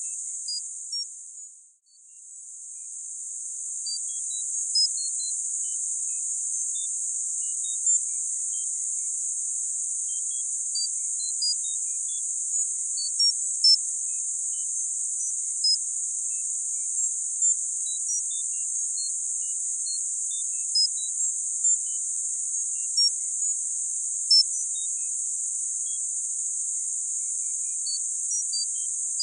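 Synthetic tinnitus-masking sound: a steady, high-pitched hiss confined to a narrow band, sprinkled with short high beeps at irregular moments. The hiss fades out to silence just under two seconds in, then swells back over the next two seconds.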